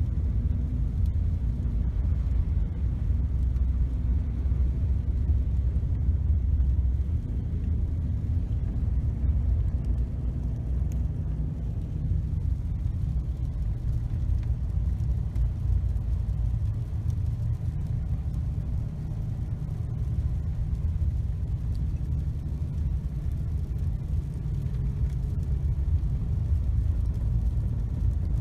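Steady low rumble of a car's road and engine noise, heard from inside the cabin while driving on snowy, icy roads.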